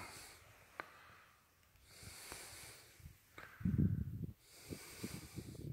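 Heavy breathing close to the microphone, a hissy breath about every two and a half seconds. In the second half, loud low rumbling thumps of wind buffeting the microphone.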